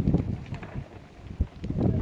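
Wind buffeting the microphone, a low rumble that dies down, with a single dull thump about a second and a half in.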